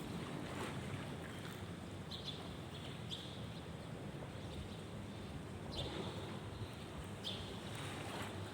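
Steady low rumble with wind on the microphone, and about four short, high chirps spread through it.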